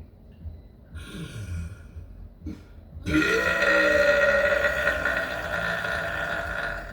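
A person burping: one long, loud burp, held at a steady pitch for nearly four seconds, starting about three seconds in. A brief, quieter sound comes about a second in.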